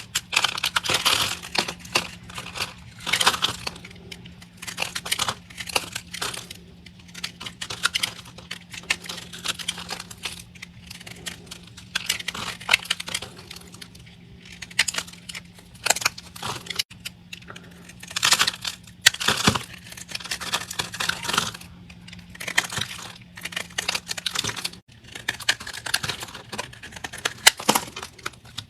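A blade cutting through dry, crunchy soap: irregular runs of crackling crunches and sharp little clicks as the soap breaks apart under the knife. A faint steady hum lies underneath and stops near the end.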